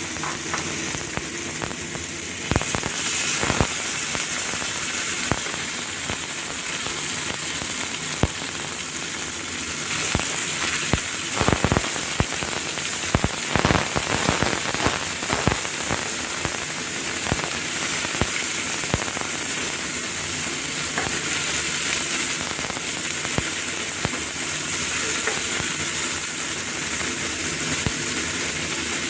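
Sliced chicken and chopped garlic sizzling steadily in hot oil in a pan, while a wooden spatula stirs them. A spatula clatters against the pan in a run of knocks and clicks between about 11 and 16 seconds in.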